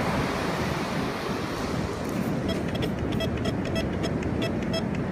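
Surf and wind noise, with a Bounty Hunter TX4 metal detector starting a rapid run of short beeps about halfway in, about four a second, as its coil passes over a buried metal target.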